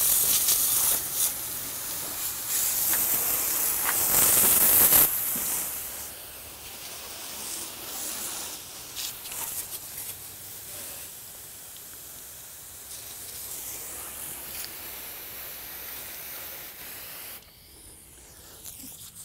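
Water from a garden hose spraying hard against a boat's hull, rinsing off hull cleaner, with an even hiss. The spray stops about five seconds in, leaving only a faint outdoor background.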